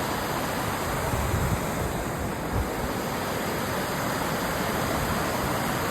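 Steady rush of water at the top of a large waterfall, where a small stream pours over the edge and drops away.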